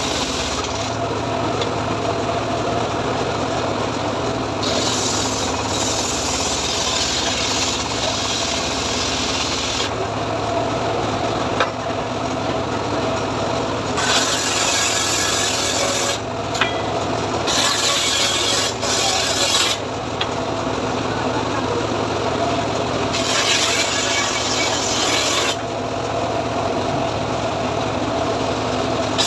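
Homemade engine-driven table circular saw ripping a teak log lengthwise. The engine and blade hum steadily, and four times the blade bites into the wood with a loud rasping hiss lasting a few seconds as the log is pushed through.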